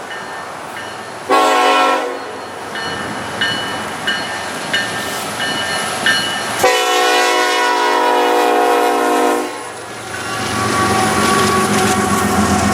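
Diesel freight locomotive horn sounding a short blast and, about five seconds later, a long blast lasting nearly three seconds. Short ringing notes repeat in between. After the horn, the train's rumble and wheel clatter on the rails build up as it comes close.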